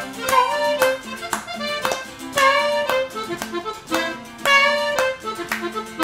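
Cumbia played live on button accordion, saxophone and strummed guitar in an instrumental passage between sung lines, with held melody notes over a steady strummed beat.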